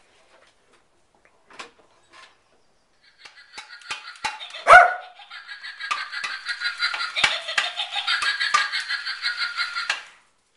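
A dog barking and yapping, starting about three seconds in, with one loud bark just under five seconds in, and cutting off abruptly near the end.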